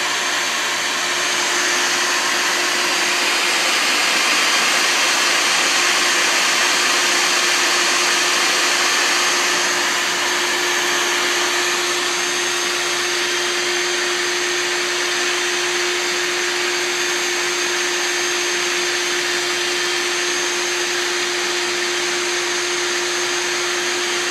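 Bee vacuum running steadily: a constant motor hum with the hiss of air suction as it draws bees off a swarm.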